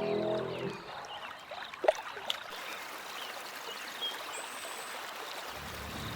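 Water trickling and lapping, with two small sharp splashes about two seconds in.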